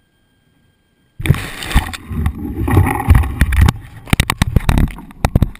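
Handling noise picked up through a GoPro's waterproof housing: a muffled rumble with repeated knocks and rubbing. It starts abruptly about a second in.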